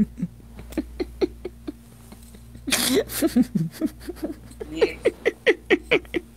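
Stifled laughter in runs of short, quick giggles, with a breathy burst about three seconds in.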